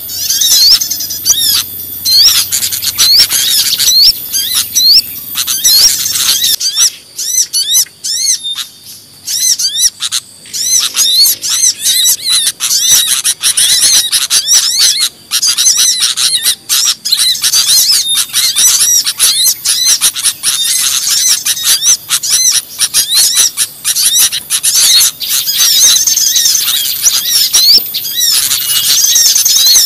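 A dense, noisy chorus of many small songbirds chirping and calling at once, used as a bird-lure call for small birds. It is a rapid stream of sharp chips and high whistled notes that thins out briefly from about seven to eleven seconds in, then fills again.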